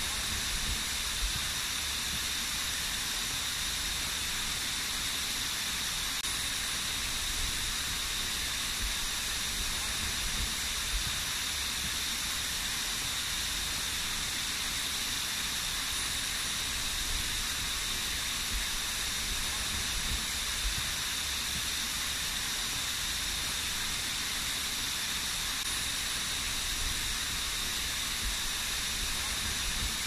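Small waterfall splashing down a rock face: a steady, even hiss of falling water that does not change.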